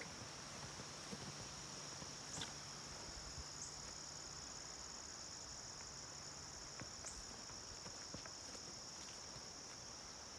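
Steady, high-pitched outdoor chorus of insects. A faint low hum stops about two-thirds of the way through, and a few light clicks are heard.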